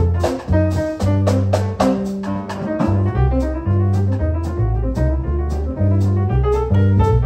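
Live jazz from a piano, double bass and drum kit: a moving bass line under piano chords, with a steady beat of cymbal strokes.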